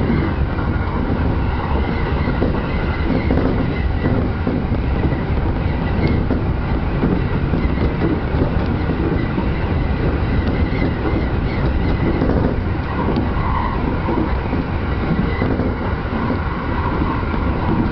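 E231 series electric commuter train running on the rails, heard from inside the leading car: a steady, loud rumble of wheels and motors with some clickety-clack over rail joints.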